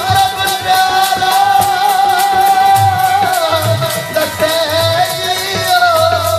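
Sikh shabad kirtan: a male voice holds one long sung note for about three seconds, then moves through a winding melodic run, over a steady harmonium drone and low tabla strokes.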